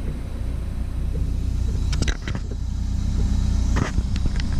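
Cat 314E excavator's diesel engine running steadily with a low rumble, and a few short clicks and knocks from about two seconds in.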